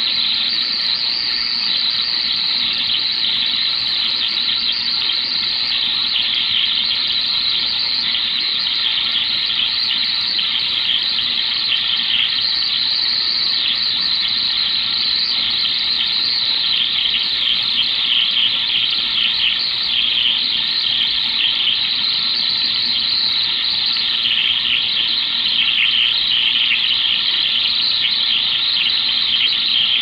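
Stryker SR-955 ten-meter transceiver's speaker putting out a loud, steady, harsh rushing noise while receiving on 27.561 MHz. It is an odd interference signal drifting down through the frequencies, which the operator takes for something more than ordinary atmospheric noise. In the last few seconds the noise shifts a little lower and grows slightly louder.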